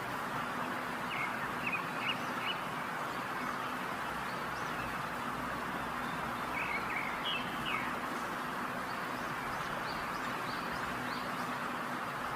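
Steady hiss of chicken drumsticks sizzling in hot oil, with a few short high chirps over it.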